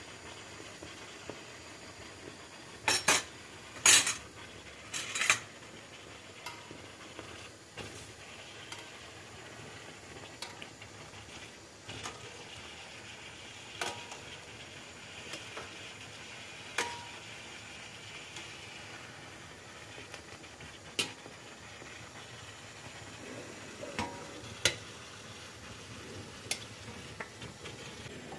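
Steel ladle clinking against a wide metal pan, several sharp clinks about three to five seconds in and then single clinks every few seconds, as hot sugar syrup is ladled over bread kadayıf. Under it the syrup simmers with a faint steady hiss.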